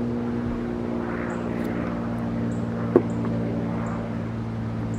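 Electric drill motor running steadily at one even pitch while driving a screw, with a single sharp click about three seconds in.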